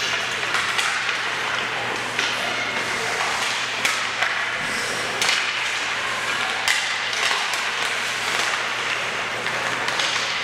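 Ice hockey play on a rink: sharp clacks of sticks and puck every second or two over a steady hiss of skates on the ice, with a constant low hum underneath.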